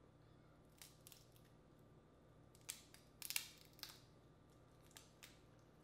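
Boiled crawfish shells being cracked and peeled by hand: scattered sharp snaps and crackles, with a cluster of them about three seconds in.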